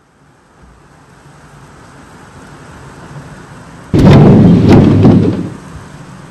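A sudden, very loud bang about four seconds in, with a few sharp cracks, lasting about a second and a half, over a rising rush of noise from a squall.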